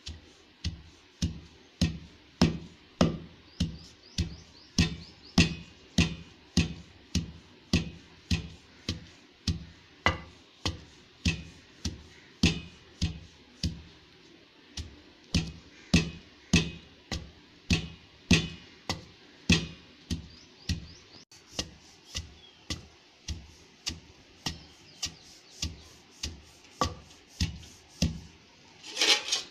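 Wooden pestle pounding dried red chillies in a stone mortar, steady strokes about three every two seconds, each a dull thud with a dry crackle. A short, louder burst of noise comes near the end.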